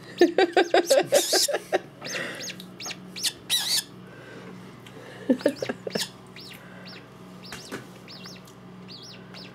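Baby pukeko chick peeping repeatedly in short, high chirps, with quick runs of lower cheeps in the first second and again about halfway through. Two brief rustles come in the first four seconds, and the peeps grow fainter after about six seconds.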